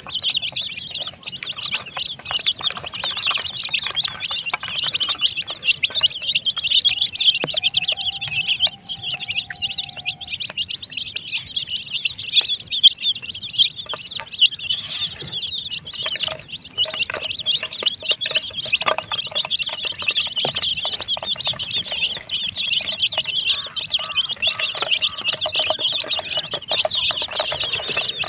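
A flock of baby chicks peeping continuously: a dense chorus of rapid, high-pitched cheeps.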